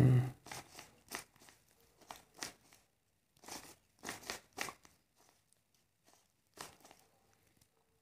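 Plastic clicks and rasps of a stickerless 3x3 Rubik's cube's layers being turned by hand, in short irregular groups with a quiet stretch of almost two seconds past the middle.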